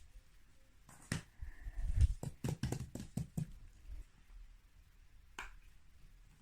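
Fidget toys being handled: a quick run of light clicks and taps, then a single click a few seconds later.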